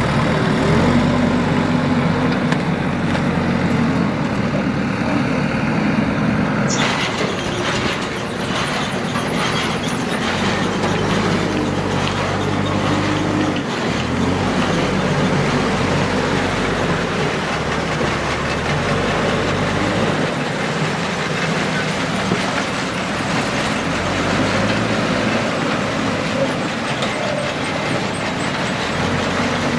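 Diesel engines of a backhoe loader and tractors working, their pitch rising and falling with load. About seven seconds in, a harsh hissing rattle sets in on top and carries on.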